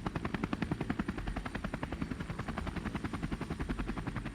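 Helicopter rotor sound effect: a rapid, steady chop of the blades.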